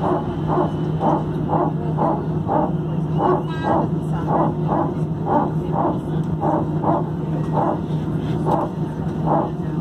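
Airbus A319's hydraulic power transfer unit (PTU) barking: a sharp squeaking bark repeating about twice a second, over a steady low hum. On A320-family jets this barking is normal just after engine start.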